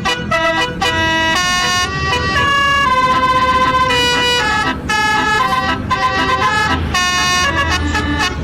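Bus basuri telolet horn playing a melody: a run of steady, piercing horn notes that step up and down in pitch, most short, one held for about a second near the middle.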